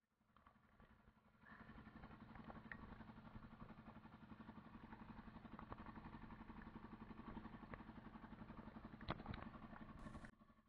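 Small wooden fishing boat's engine running steadily under way, faint, with a fast even beat. About a second and a half in it grows a little louder, and two sharp clicks or knocks sound close together near the end.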